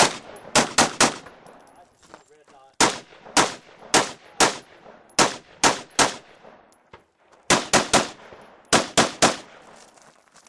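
AR-15-style carbine firing about sixteen shots in quick strings of three or four, some a quarter second and some half a second apart, with short pauses between the strings as the shooter works through a course of fire.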